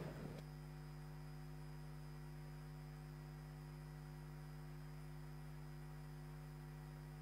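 Steady electrical mains hum in the sound feed, strongest at a low buzz-like pitch with a row of fainter overtones and a thin high whine, coming in abruptly about half a second in and holding unchanged.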